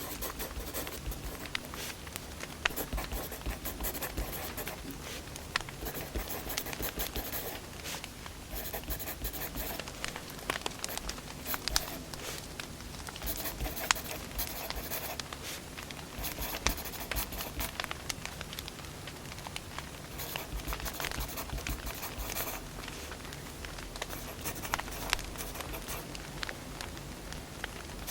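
Firewood burning, crackling continuously with frequent irregular sharp pops.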